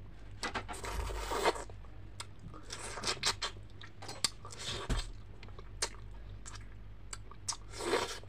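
Fried fish being pulled apart by hand and eaten off the bones. There are several short bouts of dry crackling and scratchy tearing, with crisp crunches and sharp clicks between them.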